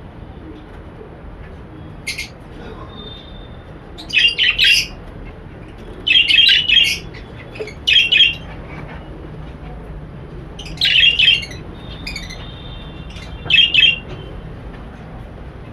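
A roomful of caged small parrots, lovebirds and budgies, giving short bursts of shrill screeching calls, one every second or two, over a steady low hum.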